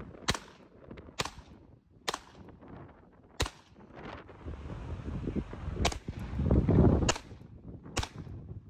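Ruger Mark IV Lite .22 LR semi-automatic pistol fired in slow, irregular single shots, about seven sharp cracks roughly a second apart. A gust of wind on the microphone rumbles loudly between two of the later shots.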